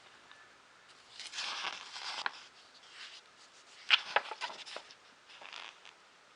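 Magazine pages being handled and turned: a rustle of paper about a second in, a sharp click and a few taps around four seconds in, and a short rustle near the end.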